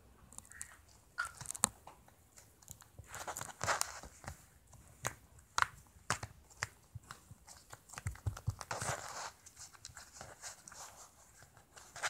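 Purple glitter slime being squeezed and stretched between fingers, giving irregular squishy clicks and crackles.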